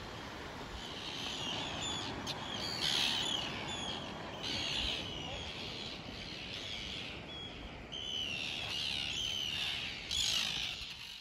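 Seabirds calling again and again in short harsh bursts, loudest about three seconds in and near the end, over a steady hiss of wind and sea.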